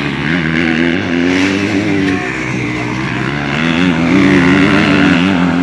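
MX2-class motocross dirt bikes racing on a dirt track, their engines revving up and down with the throttle. The engines are loudest about four to five seconds in.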